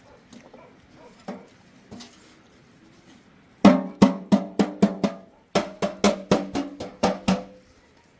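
A rapid series of sharp strikes, about a dozen in two runs with a short pause between, each leaving a brief low ringing tone, as of blows on a resonant object.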